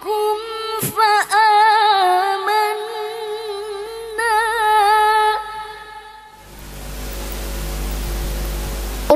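A woman reciting the Quran in the melodic, ornamented tilawah style into a handheld microphone, holding long notes with quick melodic turns; the phrase trails off a little after five seconds in. A smooth rushing noise then rises for about three seconds.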